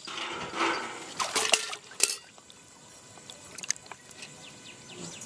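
A freshly caught fish tipped from a steel pail into a tub of water, splashing and thrashing, with a few sharp knocks in the first two seconds, then quieter drips and small splashes.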